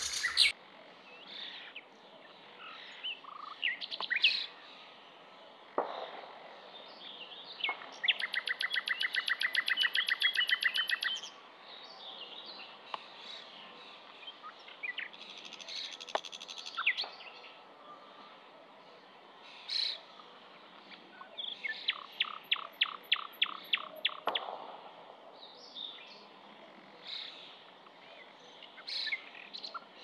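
A songbird, the sikatan londo, singing a varied song of scattered whistles and chirps. It breaks into a fast trill of rapidly repeated notes about a third of the way in, and into a quick run of sharp repeated notes about three quarters of the way through.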